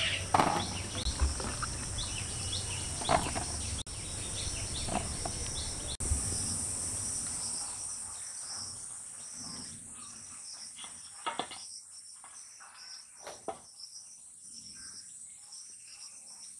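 Steady high chirring of insects such as crickets, with the splashing and knocking of hog plums being washed by hand in a steel bowl of water during the first half, then fainter occasional handling knocks.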